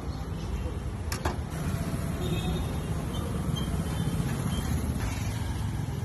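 Steady low rumble of street traffic around a roadside grill stall, with one sharp metallic click, like tongs striking the grill, about a second in.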